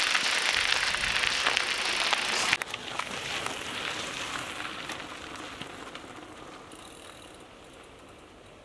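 Knobby mountain-bike tyre rolling over loose gravel and dirt: a steady crunching crackle. It is loud for the first couple of seconds, then drops and slowly fades away.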